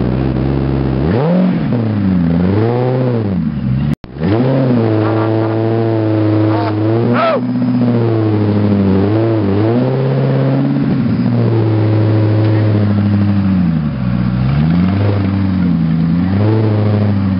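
Koenigsegg CC8S supercharged V8 being blipped repeatedly while stationary: the revs climb and drop back toward idle again and again, with one sharp high rev about halfway through. The sound cuts out for a moment about four seconds in.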